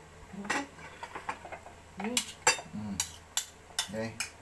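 A metal spoon clinking and scraping against a bowl and plate as food is served, with a run of sharp clinks in the second half.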